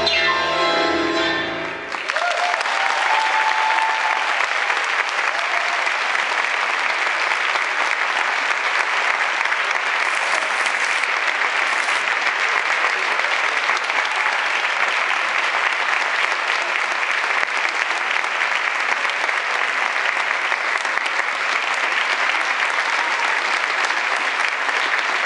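Tango music ends about two seconds in, followed by steady, continuous audience applause.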